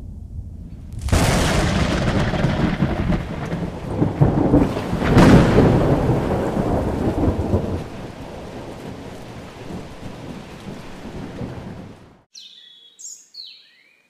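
Thunderstorm: a sudden crack of thunder about a second in and another about five seconds in, over a rumble and the steady hiss of heavy rain, easing off and then cutting off suddenly. A few bird chirps follow near the end.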